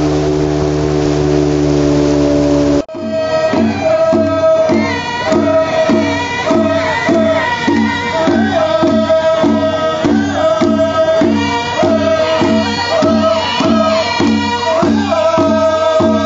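An outboard motor on a river boat runs steadily with water rushing past for about three seconds, then cuts abruptly to a group singing over a steady drumbeat of a little under two beats a second.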